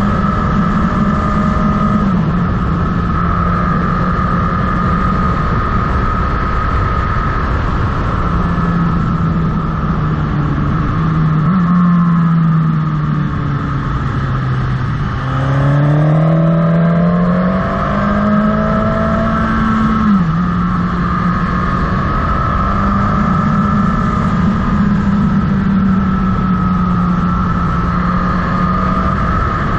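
Motorcycle engine under way with wind rushing past the microphone. About halfway through the engine note falls as the bike slows for a bend, then rises as it accelerates out, with a sudden drop in pitch soon after as it shifts up a gear.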